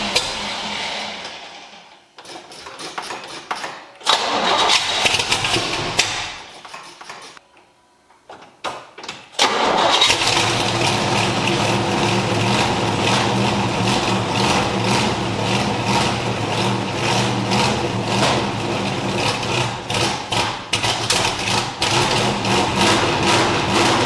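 1968 Corvette's 427 big-block V8, breathing through Hooker headers and side pipes, being started: it cranks and sputters in several short tries, then catches about ten seconds in and keeps running loud and steady.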